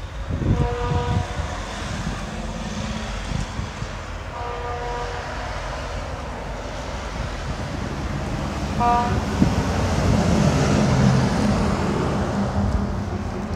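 Road traffic running past, with three short vehicle horn toots: about half a second in, about four and a half seconds in, and about nine seconds in. A vehicle engine passes louder from about ten to twelve seconds in.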